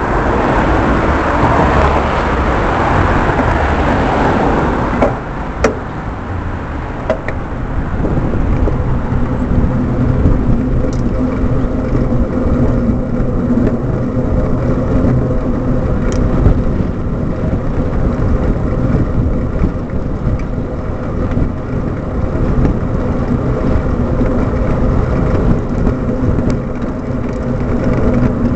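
Steady rumble and wind noise picked up by a bicycle-mounted camera while riding, with road traffic passing. A louder rush of passing traffic fills the first few seconds, and a few small clicks and knocks from the bike come through.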